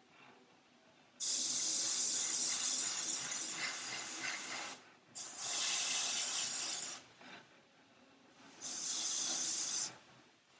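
Airbrush spraying paint: three bursts of hissing air. The first starts abruptly about a second in and runs about three and a half seconds, fading toward its end. Two shorter bursts follow, each under two seconds.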